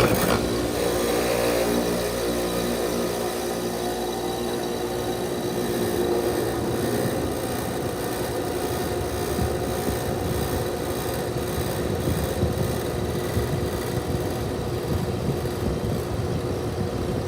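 2015 Carrier Comfort Series 5-ton central air conditioner's outdoor unit running close up, its compressor making a steady hum with several constant tones over a rushing noise. It comes in suddenly at the very start. The owner says the compressor has got noisier over the months.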